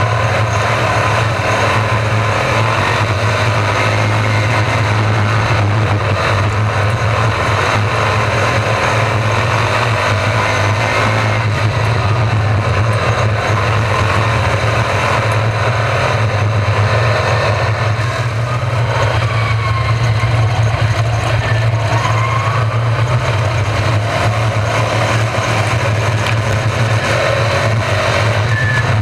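Pack of Racesaver 305 sprint cars' V8 engines running continuously around the dirt oval, their engine notes rising and falling as the cars go past, over a steady low drone.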